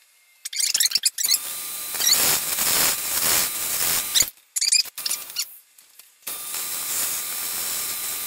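Lathe tool cutting a spinning hemlock blank on a 1952 Logan 920 metal lathe: a rasping cut in spells with short high squeaks, broken by two brief pauses, then a steadier cut toward the end.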